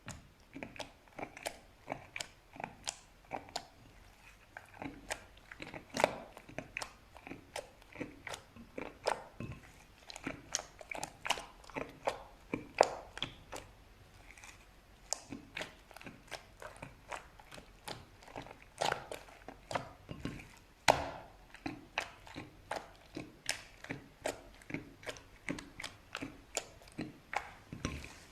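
Slime being worked by hand, giving an irregular run of sharp clicks and pops, about two or three a second, a few of them louder.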